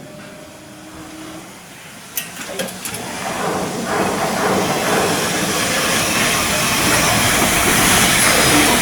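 Shipyard work noise: a few sharp clicks, then a loud steady hiss that swells up from about three seconds in and holds.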